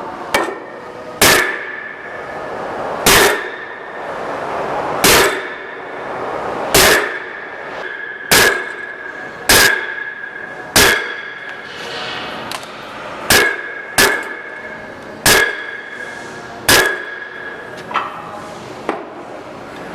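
About a dozen hammer blows on the metal disc holder of a tyre testing machine, each a sharp clang with a ringing tone, struck one to two seconds apart and turning to lighter taps near the end: knocking the disc holder off its shaft to reach the bearings.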